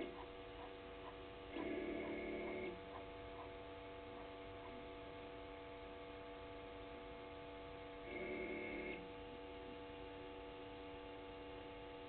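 Steady electrical hum from a remote-controlled pan-tilt camera's equipment, broken twice by a low buzz lasting about a second, starting and stopping abruptly, about two seconds in and again about eight seconds in, as the camera's motor moves it.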